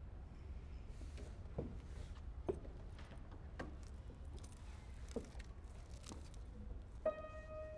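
Quiet concert-hall room tone with a few faint scattered knocks and shuffles. About seven seconds in, a single grand piano note is struck and held, opening the piece.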